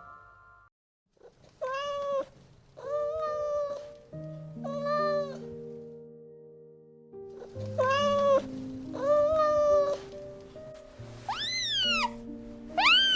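A domestic cat meowing: five drawn-out meows of about the same pitch, then two higher meows that rise and fall near the end, over soft background music of sustained notes.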